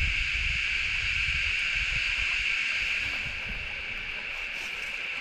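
Outdoor riverbank ambience: a continuous high-pitched drone, with wind rumbling on the microphone.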